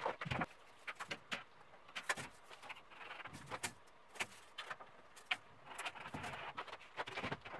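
A plasterboard sheet being shifted and stood up against a metal stud frame: scraping and irregular light knocks.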